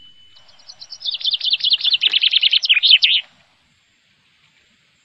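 A bird's rapid run of high, down-slurred chirps, about ten a second, growing louder for about three seconds and then stopping abruptly.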